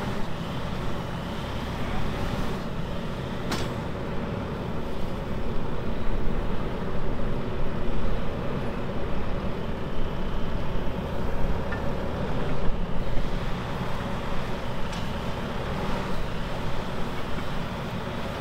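Bobcat 770 compact track loader's diesel engine idling steadily, with a single sharp knock about three and a half seconds in.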